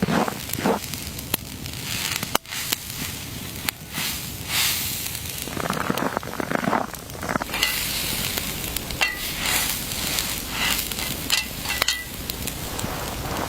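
Continuous sizzling and crackling noise, with many sharp clicks and louder rustling swells every second or two.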